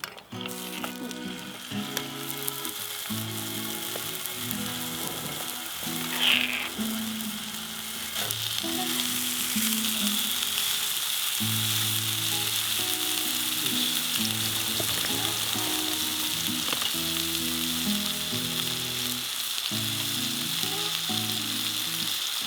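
Food sizzling as it fries. The sizzle grows louder and steadier about eight seconds in, with a brief sharper spit near six seconds.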